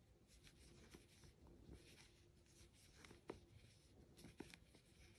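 Near silence, with faint rustling of wool yarn and a few soft clicks of a metal crochet hook as a popcorn stitch is worked.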